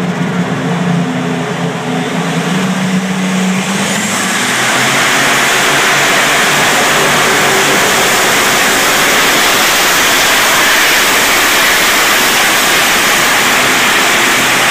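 Pulling tractor's engine pulling a weight-transfer sled: a steady engine note, then about four seconds in it goes to full throttle with a rising whine and runs loud and steady for the rest of the pull.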